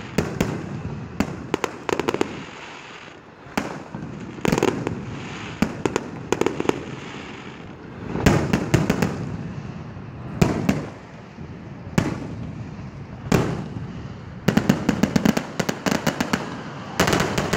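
Aerial firework shells bursting one after another, sharp booms with echoing tails and crackle between them. A fast run of pops and bangs comes in the last few seconds.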